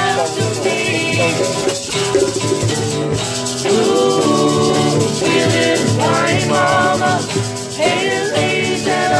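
Amateur group singing with a guitar, a woman's voice leading, over a shaken rattle.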